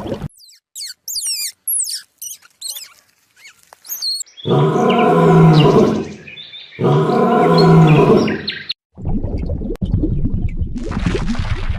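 Animal calls in sequence: a run of quick, high sweeping chirps, then two long, loud calls with a rich pitched tone, then a dense, noisy rumbling sound starting about three quarters of the way in.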